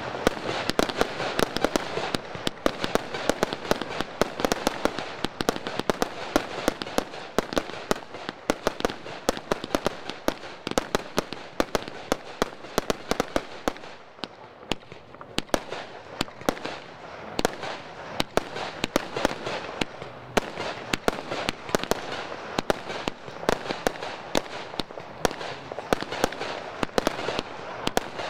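Fireworks display firing in rapid succession: shots launching and bursting with many sharp bangs and cracks a second, thinning briefly about halfway through.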